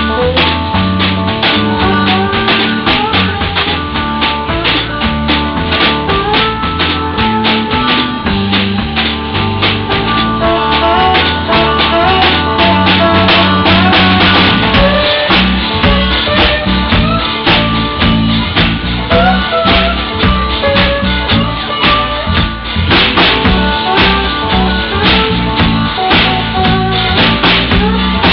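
Live blues trio playing an instrumental passage: an acoustic guitar played flat across the lap, slide-style, over a drum kit keeping a steady beat and a stepping bass line.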